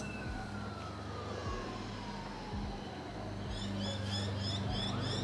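A distant siren wailing, its pitch slowly falling, over a low steady hum. From about three and a half seconds in, a small bird joins with quick, high, repeated chirps.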